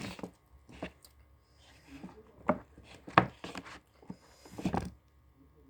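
Close-miked eating sounds: a handful of short, sharp crunches and clicks from biting and chewing, the loudest a little past three seconds in.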